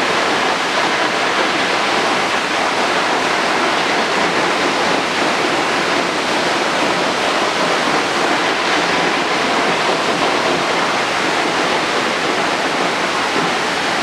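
Waterfall crashing onto granite boulders: a steady, even rush of falling water.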